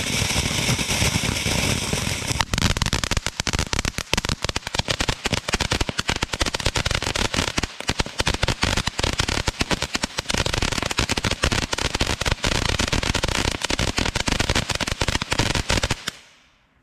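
World Class Fireworks 'Go Girl Go' ground fountain burning: a steady spraying hiss for the first couple of seconds, then dense rapid crackling through most of the rest, dying away just before the end.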